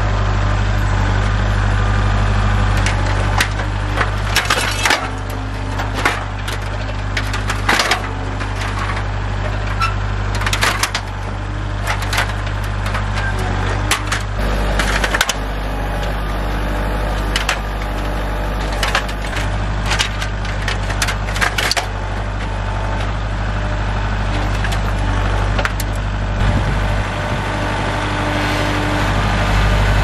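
A Kubota tractor's diesel engine running steadily while its loader grapple crushes a thin aluminum ladder, with many sharp crunches and clanks of bending and snapping metal at irregular moments.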